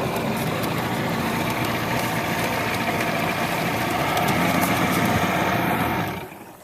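An engine running steadily, rising a little in pitch around four to five seconds in, then stopping abruptly about six seconds in.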